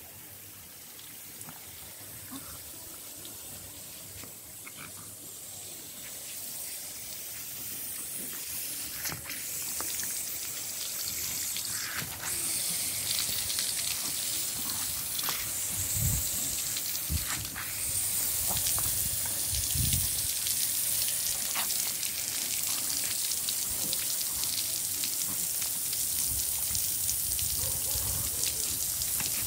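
Lawn sprinkler spraying water onto grass: a steady hiss of spray that grows louder over the first ten seconds or so and then holds, with a few low bumps partway through.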